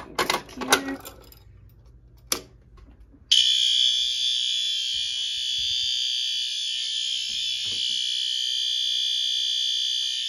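System Sensor L-Series P2RL horn strobe set to continuous, sounding one steady, unbroken horn tone that starts abruptly about three seconds in, just after a sharp click as the pull station is worked.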